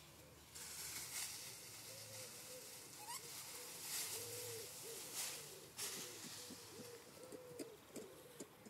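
Ring-tailed lemurs giving a run of short, repeated clicking calls that come faster toward the end, over a background hiss.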